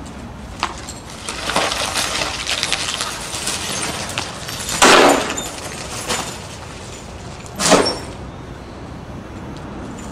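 Cracked laminated car windshields being handled and set down: a crackling crunch of crazed glass for a couple of seconds, then two louder crashes about three seconds apart.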